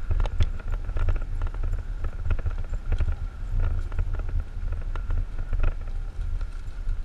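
A 56V electric mountainboard on 10-inch tires rolling over grass: a steady high motor whine over a low rumble, with irregular clicks and knocks as the board bumps along.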